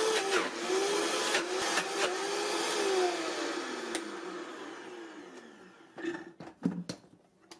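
Vitamix 5200 blender running at high speed on thick almond butter, its motor pitch wavering with the load. About three seconds in it is switched off and the motor winds down over a few seconds, then a few knocks near the end.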